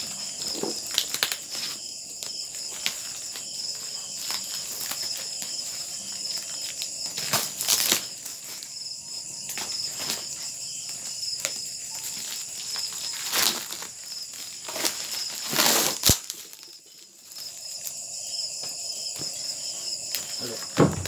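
A cardboard shipping box being opened by hand: packing tape scratched at and torn off in short rips, with the cardboard crinkling. The strongest rips come about 8, 13 and 16 seconds in. Insects chirr steadily in the background.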